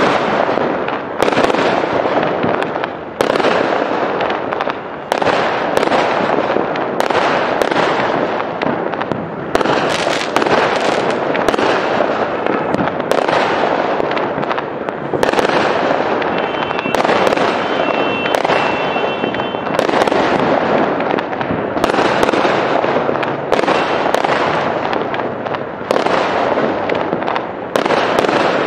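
Fireworks display with aerial shells bursting in quick succession, about one sharp bang a second, and a constant crackling hiss between the bangs.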